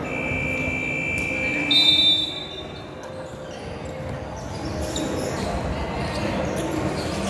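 Referee's whistle in a gym during a basketball game: one long blast of about two seconds, with a shorter, higher and louder blast at its end. Afterwards basketballs bounce and players talk in the echoing hall.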